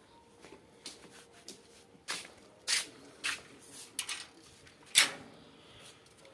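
Metal clanks and clicks from an iron gate's latch being worked and the gate pushed open. It is a run of sharp knocks, the loudest about five seconds in.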